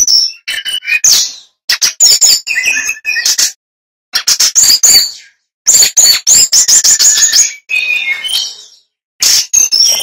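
A male brown-chested jungle flycatcher singing loudly: about seven short bursts of rapid clicking, chattering notes mixed with short high whistles, each burst one to two seconds long with brief pauses between.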